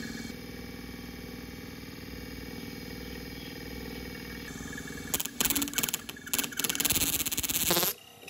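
A DC motor spinning a metal disc on its shaft runs with a steady whir. About five seconds in, loud, harsh rasping comes in several spurts for nearly three seconds, then everything cuts off suddenly near the end.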